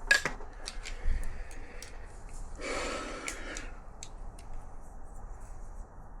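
Hand tools clicking and tapping on a motorcycle engine's fittings, with a sharp click at the start and a few lighter ticks after. A heavy breath out near the middle.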